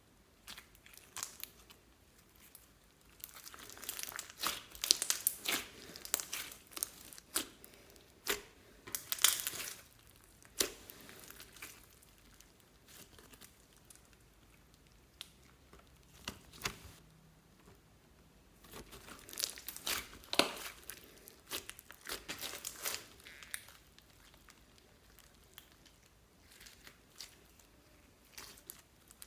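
Slime with makeup and clay mixed in, squeezed and stretched by hand, crackling and popping in two long spells with quieter pauses between.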